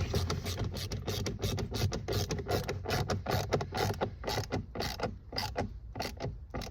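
Ratchet screwdriver clicking in quick, uneven strokes while driving a screw.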